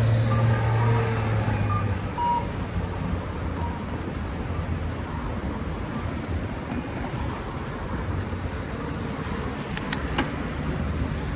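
Street traffic: a nearby vehicle's engine hums steadily for the first couple of seconds and then fades, leaving a steady rush of traffic noise. A couple of sharp clicks come near the end.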